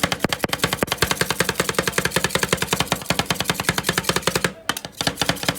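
Metal spatulas chopping rapidly on a cold steel ice cream roll plate, about ten sharp strikes a second, with a brief pause about four and a half seconds in.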